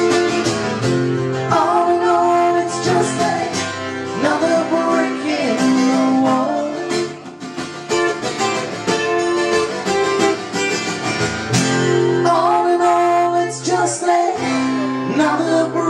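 Two acoustic guitars strummed together in a live acoustic duo performance, with sung vocals coming in phrases over them.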